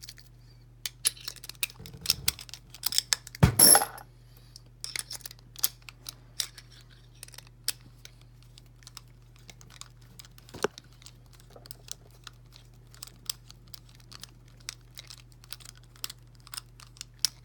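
Small, irregular metallic clicks and taps as a tiny screw is worked against a padlock body, trying to catch the threads, with a louder clatter about three and a half seconds in.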